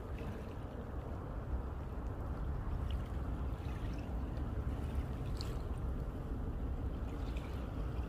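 Steady low rumble of wind on the microphone over small waves lapping at the shore, with a few faint trickling ticks of water.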